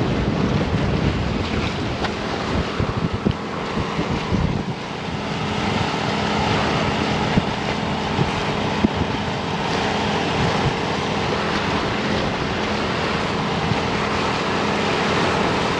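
Wind buffeting the microphone over waves washing against the dike, with a faint steady low hum underneath.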